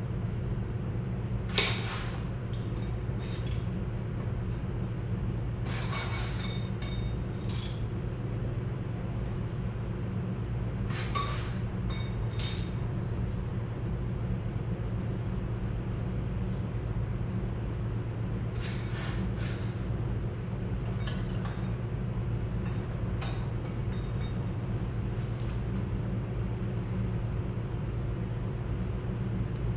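Metal hand tools clinking against a Farmall Super C tractor's engine during head gasket work, a few scattered clinks and rattles, the sharpest about two seconds in, over a steady low hum.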